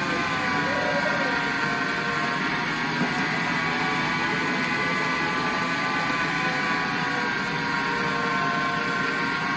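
Michelangelo electric meat grinder running steadily, its motor giving a whine of several steady tones over a hum. The pitch dips and recovers slightly as it forces cooked split peas through the mincing plate.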